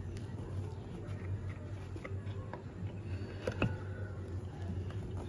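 Soft fabric handling with a few faint clicks as cut t-shirt strips are tucked through the edge of a woven rag rug on a nail loom, the sharpest click about three and a half seconds in, over a steady low hum.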